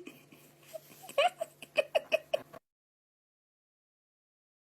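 A person giggling in short, soft bursts for about two seconds, then the sound cuts off suddenly to dead silence.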